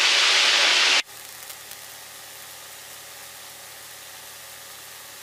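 Single-engine Cessna's piston engine and cabin noise coming loud through an open voice-activated headset mic for about a second, then cutting off suddenly as the mic closes. Only a faint, steady engine drone is left, with the engine at climb power.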